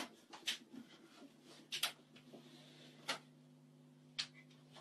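Quiet room tone with a few faint, short clicks and rustles of small movements, and a faint steady low hum coming in about two seconds in.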